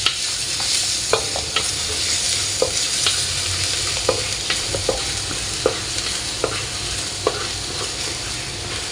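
Garlic sizzling in hot oil as it is stir-fried, with a spatula clicking and scraping against the pan every second or so.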